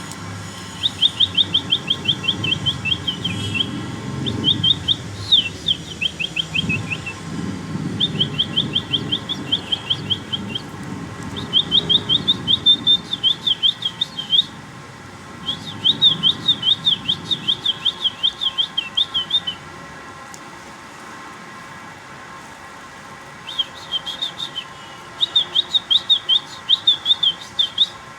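Small bird chirping in quick trilled bursts, about eight high chirps a second, in six or seven runs of two to four seconds with short pauses and a longer break about two-thirds of the way in. A low rumble sits underneath through the first part.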